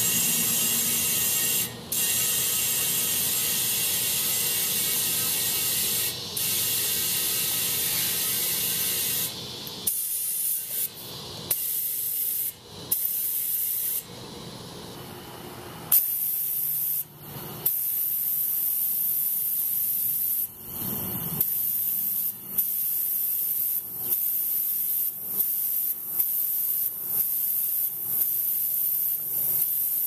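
Compressed air hissing from a trigger-type tire inflator with a dial gauge into a golf cart tire's valve stem, inflating it toward 22 psi. A long steady hiss broken by two short pauses, then from about ten seconds in a series of shorter hisses with brief gaps between them, coming faster near the end.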